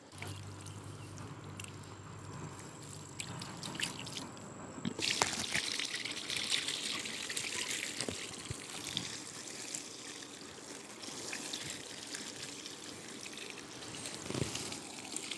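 Water poured from a plastic jug onto grass and soil, splashing and trickling into the ground; the pouring starts about five seconds in and runs on steadily. The ground being wetted is the spot where a cooking fire stood.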